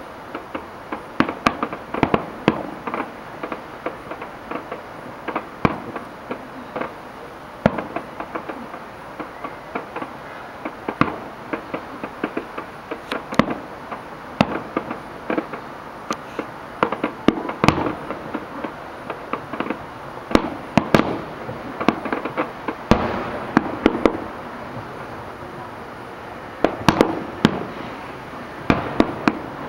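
Aerial fireworks shells bursting: a steady run of sharp bangs at irregular intervals, bunching now and then into rapid volleys of several bangs close together.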